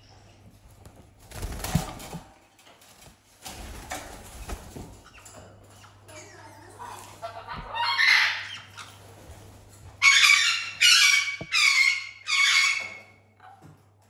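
Caiques screeching: one harsh call about eight seconds in, then four loud screeches in quick succession near the end. Earlier, rustling and bumps.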